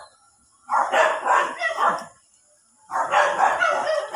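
A dog barking in two runs of quick barks, the first starting under a second in and the second about three seconds in.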